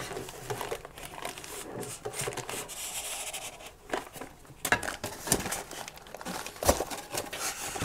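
Packaging rustling and crinkling with a few sharp knocks as a Blue Yeti microphone is worked out of its tight-fitting box.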